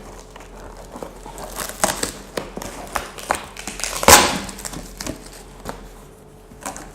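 Helmet's cardboard box being opened by hand: flaps and packaging scraping, rustling and crinkling in irregular handling noises, with one louder rustle about four seconds in.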